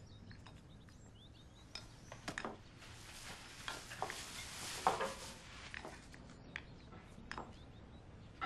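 Kitchen sounds: scattered light clinks and knocks of dishes and utensils, with a hiss lasting about two seconds near the middle.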